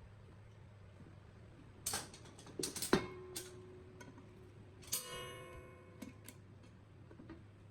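Small metal parts being handled on a workbench: scattered clicks and knocks, a sharper knock about three seconds in that rings briefly, and a metallic clink about five seconds in that rings on for about a second.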